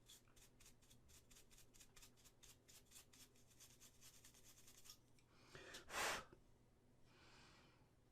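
Quick light rubbing strokes on a small resin model part, about six a second, as the glued seam area is cleaned up. About six seconds in comes one short, louder rush of air.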